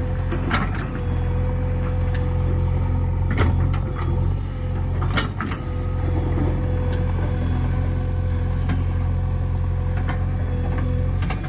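JCB 3DX backhoe loader's diesel engine running steadily under a constant whine, with a few sharp knocks now and then.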